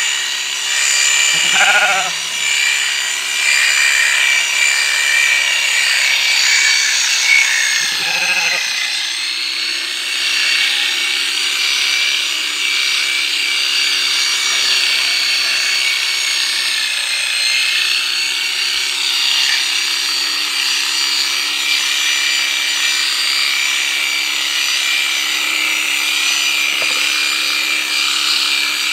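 ST-777 650 W electric sheep-shearing clipper running steadily as it cuts through a sheep's fleece. It gives a constant motor hum under a high blade whine, and the pitch sags slightly now and then as the comb loads up with wool.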